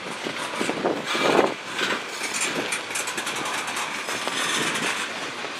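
Freight train cars rolling past, steel wheels clicking and clattering over the rails in a rapid series of ticks, with wind noise on the microphone.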